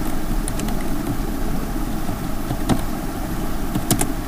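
A few sharp clicks of a computer keyboard being typed on, over a steady low rumble and hum of background noise.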